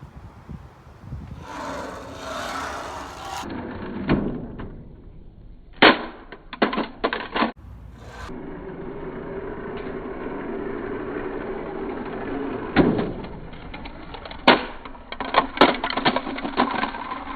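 Hard plastic toys being handled, with sharp clicks and knocks, a loud cluster of them about six to seven and a half seconds in and another near the end. A steady hum runs through the middle stretch.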